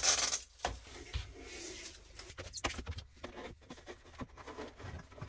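A loud rushing noise that cuts off just after the start, then scattered light knocks, clicks and rustles from handling lengths of white plastic cable trunking at a workbench.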